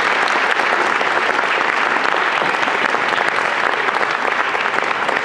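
Audience applauding: a dense, steady wash of many hands clapping.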